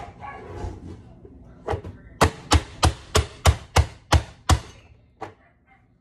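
Plastic vegetable chopper's hinged lid slammed down by hand again and again, forcing vegetables through the dicing grid blade. It is a run of about ten sharp bangs, fastest in the middle at about three a second.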